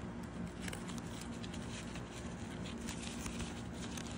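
Faint rustling and scratching as a card envelope is worked into the opening of a thin nylon zippered wallet, with the fabric rubbing against the card.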